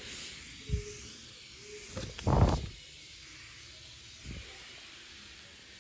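Aerosol tyre-shine spray hissing faintly onto a tractor's rear tyre, with a few dull bumps, the loudest about two and a half seconds in.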